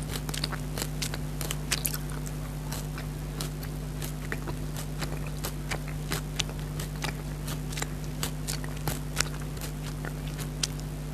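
Close-miked mouth sounds of someone chewing berry jelly sweets: a dense run of small, sharp wet clicks and smacks at an uneven pace. A steady low electrical hum sits underneath.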